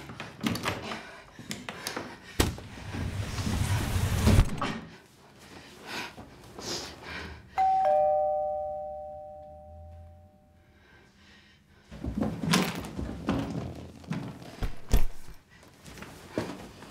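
Two-tone ding-dong doorbell chime: a higher note then a lower one, struck about halfway through and fading away over a few seconds. Rustling and knocks come before and after it.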